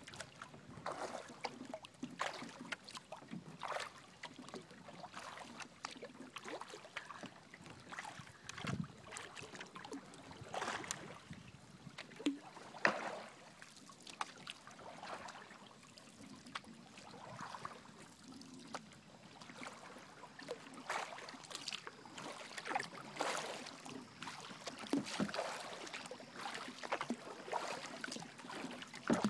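A kayak paddle splashing into the water and dripping, in irregular strokes every second or two.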